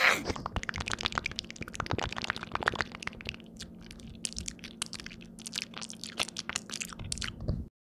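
Crinkling and crackling of a present's wrapping being torn open and handled: a quick, irregular run of crackles that cuts off suddenly near the end.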